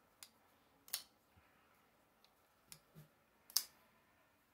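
Sitivien ST127 liner-lock folding knife being flicked open and shut by hand: a series of about five sharp metallic clicks as the blade snaps out and locks, the loudest about a second in and again about three and a half seconds in.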